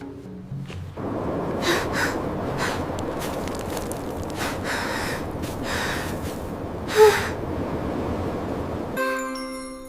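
A voice gasping and huffing several times over a steady rushing noise, with one loud sharp burst about seven seconds in. Music comes back near the end.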